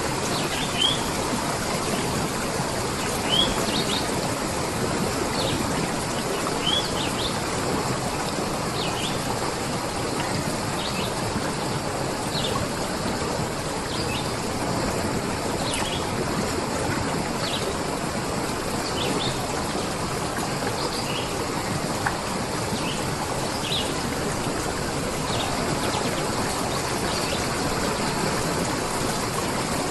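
Steady rush of running water, with birds chirping short high notes about once a second.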